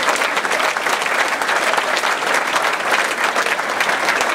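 Audience applauding, steady clapping from a room full of people.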